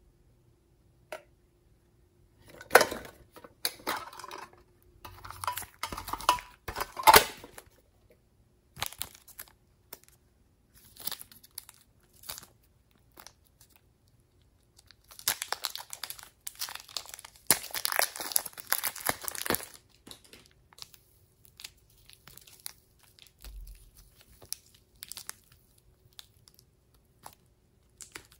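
Small plastic zip bags of soft clay being crinkled, squeezed and pulled open by hand, in irregular bursts of rustling and crackling with a few sharp clicks. The longest, densest run of crinkling comes a little past halfway.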